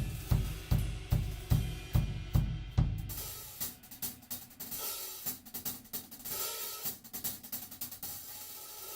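Drum kit played solo: heavy, evenly spaced bass-drum-driven beats with cymbals for about three seconds. It then drops to lighter, busier cymbal and hi-hat playing with scattered drum hits.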